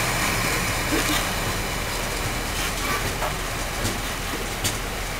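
Mendip Rail box wagons rolling past, a steady rumble of wheels on the rails with a few sharp clicks and knocks, the clearest near the end.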